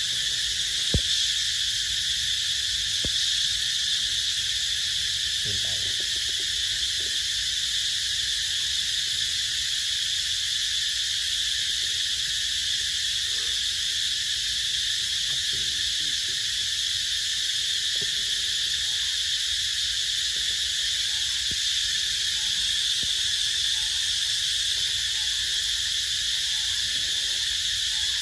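Steady, unbroken high-pitched insect chorus, with a faint tap about a second in.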